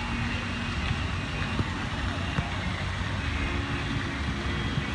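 Steady low engine rumble of a motor vehicle, with a few faint knocks over continuous outdoor background noise.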